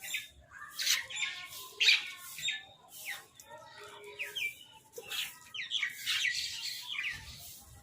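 Crows cawing, several birds calling over one another in many short calls in quick succession.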